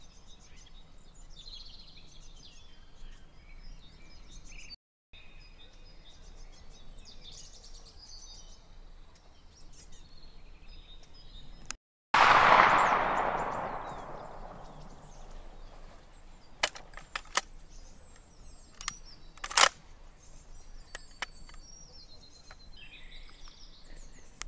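A single hunting rifle shot about halfway through, its report rolling on in a long echo that fades over about two seconds. Birds sing before and after it, and a few sharp clicks follow some seconds later.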